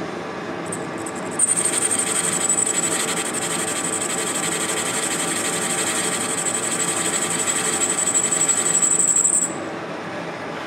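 Metal lathe running with a brazed carbide tool cutting the spinning part. About a second and a half in, a high steady whine of the cut starts over the lathe's hum, and it stops suddenly near the end as the tool comes off the work.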